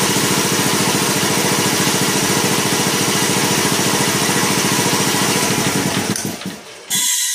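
Quincy 325 belt-driven air compressor running steadily, its pump pulsing with rapid, even strokes. About six seconds in it winds down and stops, followed near the end by a sudden short burst of noise.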